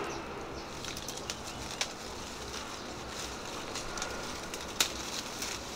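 Mango leaves rustling and fruit stems snapping as raw mangoes are picked by hand from the tree, with a few short sharp snaps, the loudest near the end.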